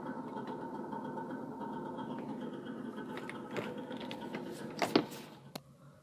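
A steady mechanical hum, joined about halfway through by a few sharp clicks and knocks, the loudest about five seconds in; right after it the hum drops away.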